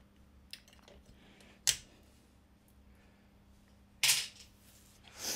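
Small clicks as a glass 2 A time-delay fuse is handled and pressed into the fuse clips on a synthesizer's power supply board, the sharpest about a second and a half in. A brief rustle about four seconds in, and a smaller one near the end.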